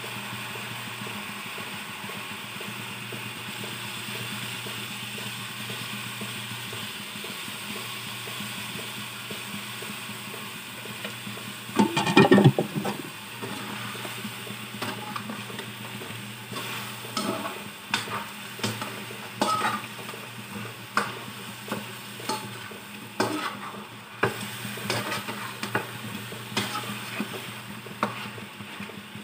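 Chicken pieces sizzling in soy sauce in a metal pan, a steady sizzle over a low hum. About twelve seconds in there is a loud burst of noise, and after that a metal spatula stirring the chicken, with many short scrapes and clicks against the pan.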